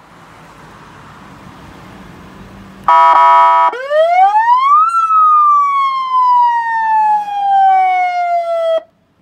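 A 200-watt electronic siren unit sounding: a brief buzzy horn blast about three seconds in, then one siren wail that sweeps up fast and glides slowly back down before cutting off suddenly. The first few seconds hold only a faint hiss.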